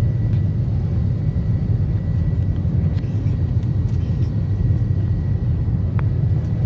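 Steady low rumble of an airliner cabin in the climb just after takeoff: engine and airflow noise, with a faint steady high tone above it.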